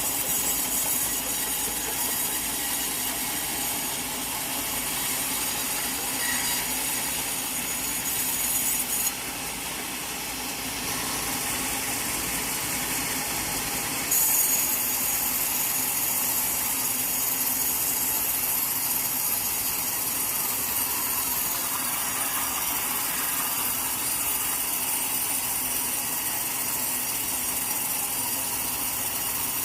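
Sawmill saw cutting through a teak log, a continuous machine noise with a bright, high edge. The high part drops away and the sound eases for about five seconds near the middle, then comes back.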